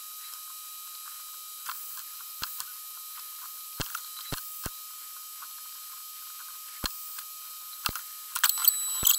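Soldering iron reflowing solder on the through-hole pins of a USB 3.0 header: scattered small clicks and crackles, about a dozen, bunched near the end, over a faint steady hiss.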